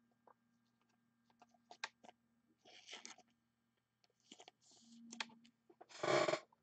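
Small clicks, taps and brief plastic rustles as a trading card is handled and slid into a clear plastic sleeve, with a louder crinkle of the sleeve about six seconds in. A faint steady hum sits underneath.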